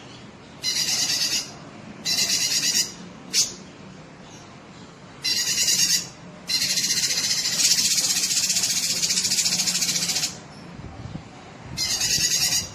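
Cucak kinoi singing vigorously in loud, high-pitched phrases: three short phrases of under a second each, a brief sweeping note, then one long phrase of about four seconds, and another short phrase near the end.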